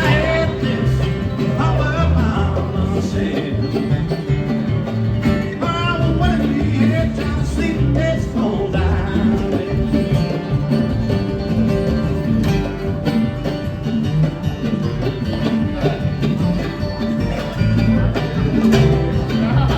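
Live acoustic string band playing bluegrass, with plucked strings over a steady bass line.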